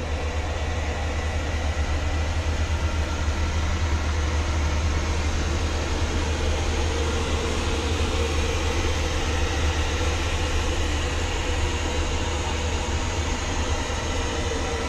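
Steady cabin noise inside a Boeing 737-800 in cruise: a constant low rumble from the engines and airflow under an even hiss.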